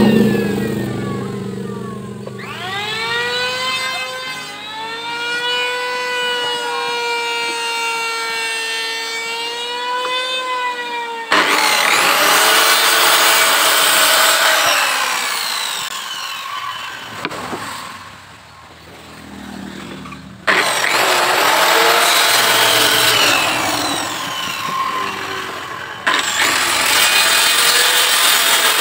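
Handheld electric circular saw cutting a wooden board. The motor spins up and whines steadily, then the blade bites into the wood with a loud, harsh sawing sound about eleven seconds in. The blade winds down with a falling whine, and two more cuts start abruptly later. At the very start a hand planer's motor is winding down.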